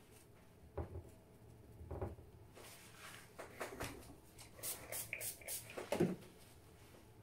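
Faint knocks, taps and rustling of watercolor painting tools being handled on a tabletop: a knock about a second in, another at two seconds, a run of light taps and rustles, and the loudest knock near the end.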